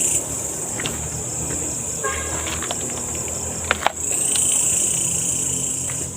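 Steady high-pitched chorus of night insects such as crickets, fading a little in the middle and swelling again after about four seconds. A few sharp clicks, the two loudest just before four seconds in.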